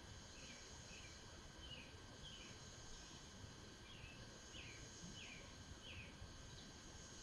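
Faint small-bird chirps, a short falling note repeated about every half second, over the steady high drone of insects and a low rumble of the outdoor background.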